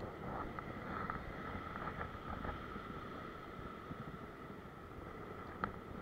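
Ocean surf breaking and washing against a coastal rock platform, with wind buffeting the microphone and a few faint clicks.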